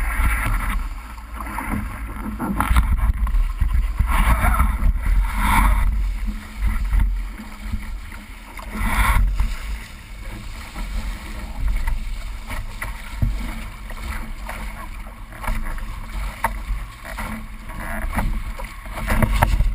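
Wind buffeting the microphone with a steady low rumble, while water rushes and splashes past the bow of a D-One sailing dinghy under way. The water noise comes in surges every few seconds.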